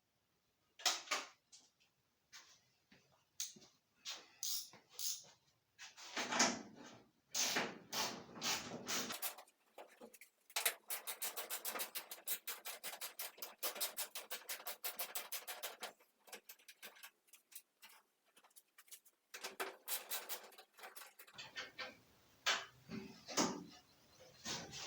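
Hand tools working on the car's bolts: scattered metal knocks and scrapes, and in the middle a run of rapid, even ratchet clicks lasting about five seconds as a bolt is wound out.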